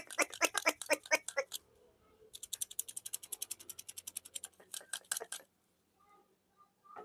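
Rapid, evenly spaced sharp clicking in runs: about eight clicks a second at first, stopping about a second and a half in, then a faster run of about ten a second. A last short burst of clicks ends a little past five seconds in.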